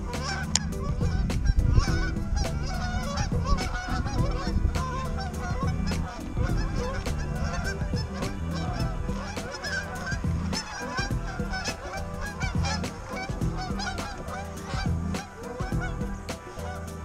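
A flock of geese honking overhead, many short calls overlapping continuously.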